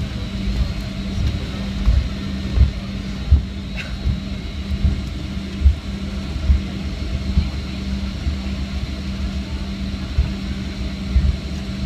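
Cabin noise inside a Boeing 757-300 rolling along the runway just after landing: a steady engine and airflow drone with a constant low hum, and irregular low thumps from the wheels running over the runway surface.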